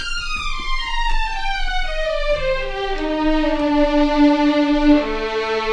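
Cinematic Studio Strings sampled violin sections (first and second violins) playing a descending line of connected notes that settles into a long low held note, with new notes entering near the end. The strings are processed for a closer, crisper, less roomy sound than the library's mix mics.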